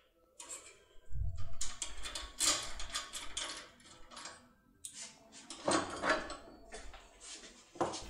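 Metal clicks and clattering as a steel locksmith decoder tool and a brass lock cylinder are handled at a workbench, with a dull thump about a second in.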